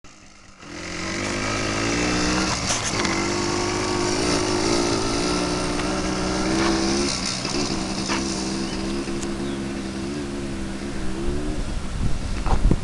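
Yamaha Blaster quad's two-stroke single-cylinder engine running under throttle, its pitch wavering a little with the throttle. It starts about half a second in and fades out near the end as the quad rides away, when wind starts buffeting the microphone.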